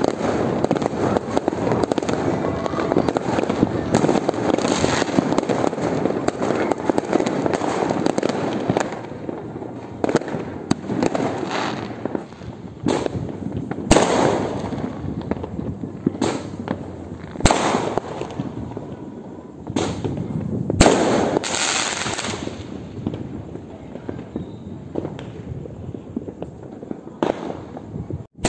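Fireworks going off in numbers: a dense, continuous crackle of bangs at first, thinning out into separate loud bangs every few seconds, each trailing off in a rumbling echo.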